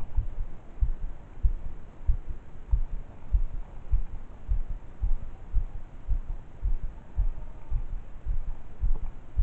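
Dull low thumps, about two a second and somewhat uneven, over a faint steady background hiss: an angler's footfalls as he walks the pond bank, carried through a camera worn on his body.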